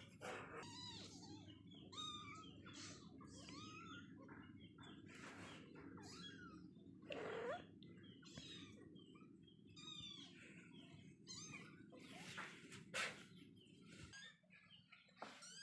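Kittens mewing: many short, high-pitched calls one after another, faint, with a louder call about seven seconds in. A low steady hum lies underneath and stops near the end.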